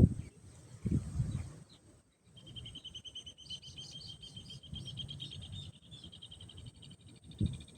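A high, rapid, steady trill from a small animal, starting about two seconds in and lasting about five seconds. Low rumble and a few low thumps run underneath.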